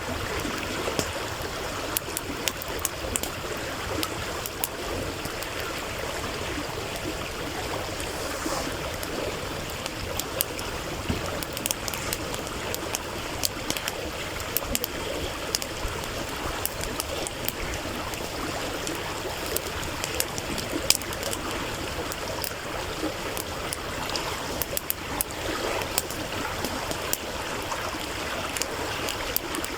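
Stream water running and gurgling steadily, with a campfire's burning wood crackling over it in frequent sharp, irregular pops.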